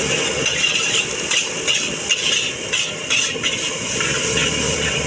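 Metal spatula scraping and clanking against an iron wok as fried rice is stir-fried, about two strokes a second, over the steady rushing noise of the wok burner.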